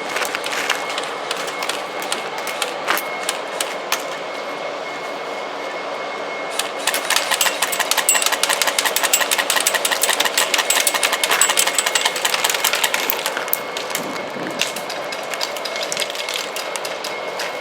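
Airsoft guns firing: scattered sharp shots, then a long stretch of dense rapid fire from about a third of the way in until about three-quarters through, then scattered shots again.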